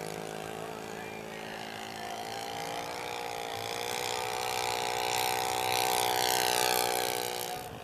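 Giant-scale radio-controlled model airplane's engine running steadily as it makes a low pass, growing louder over the first six seconds or so, then falling away sharply near the end as it goes by.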